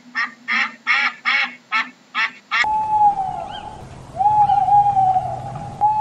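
Ducks calling in quick, evenly repeated short notes, about two or three a second. Then, after a sudden change about two and a half seconds in, an owl gives three long, steady calls, each falling away at the end.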